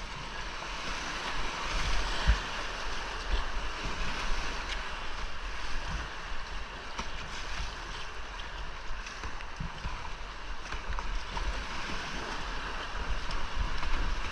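Whitewater of a steep creek rushing steadily past a kayak, with wind buffeting the microphone and a few low thumps, the loudest about two seconds in.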